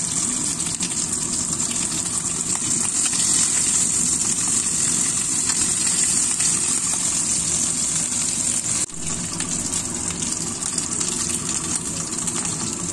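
Pieces of golden pomfret shallow-frying in a little oil in a wok, a steady high sizzling hiss as the fish browns, with a low steady rumble underneath. The sound dips briefly about nine seconds in.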